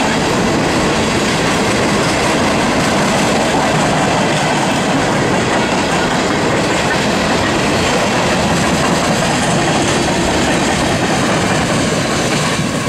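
Coal train's cars rolling past: a steady, loud rush and rumble of steel wheels on rail.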